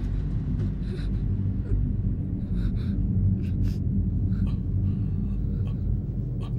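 A steady low rumble from a film soundtrack, with faint short gasping breaths of a crying boy over it.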